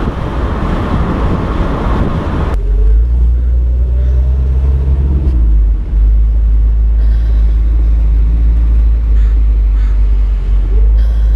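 Wind rushing over a hood-mounted camera as a 1965 Ford Mustang drives at highway speed. About two and a half seconds in, the hiss gives way suddenly to a deep, steady rumble from the car's 302 V8 and tyres at low speed, with faint rising and falling engine tones.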